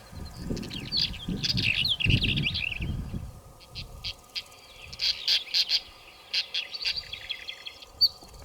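Small birds chirping and twittering in quick high notes, several calls overlapping. A low rumbling noise runs under the first half and stops about four seconds in, leaving only the chirps.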